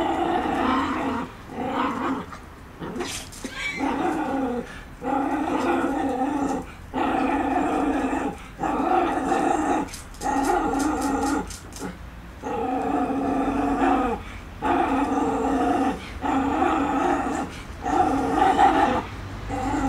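Small dog growling at a crab, a string of about a dozen growls of a second or so each, with short pauses between.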